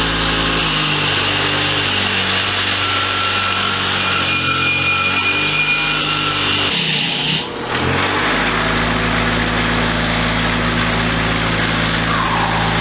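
Power-driven big wire wheel spinning against a metal vise part, stripping off rust and leftover Evapo-Rust residue: a loud, steady motor hum under a harsh scratching of wire on metal. The sound briefly drops about seven seconds in, then carries on as before.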